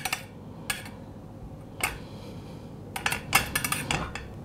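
Metal spoon clinking and scraping against a stainless steel ring mould and porcelain plate while spreading bulgur: a few separate clinks, then a quick cluster of them about three seconds in.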